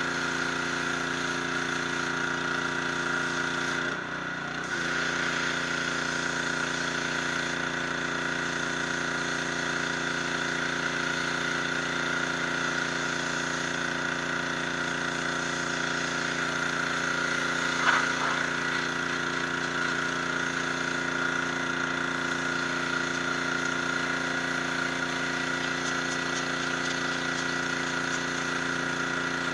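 High-pressure washer running steadily: the motor and pump drone under the hiss of the water jet on the stone. The sound dips briefly about four seconds in, and one short sharp click comes a little past halfway.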